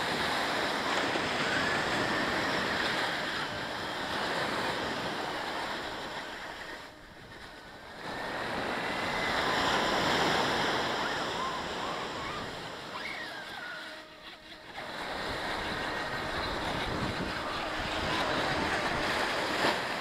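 Surf breaking and washing up a sandy beach: a steady rush of waves that drops away briefly twice.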